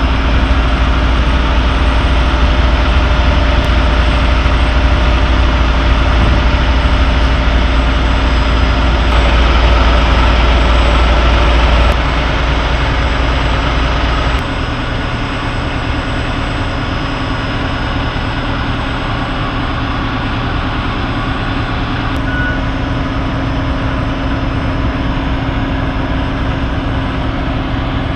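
Heavy semi truck diesel engines idling steadily. The deep low rumble drops away about halfway through.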